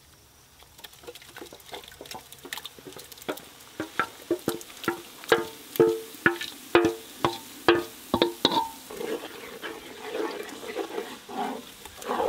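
A metal ladle scraping thick masala paste out of one metal pot into a large metal cooking pot, knocking against the pots with repeated ringing clinks, loudest in the middle. Near the end it turns to softer scraping as the paste is spread over the onions.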